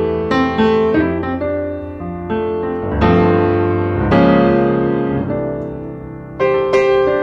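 Background piano music: struck notes and chords that ring and fade, with a new chord about three seconds in and another near the end.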